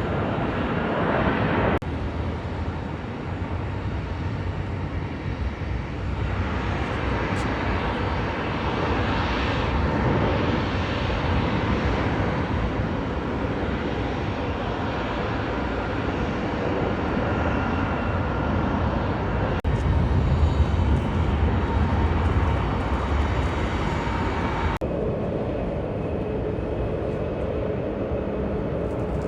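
Jet airliner engines running, a steady rumble and hiss with faint steady tones. The sound changes abruptly four times, as one short clip of aircraft noise cuts to the next.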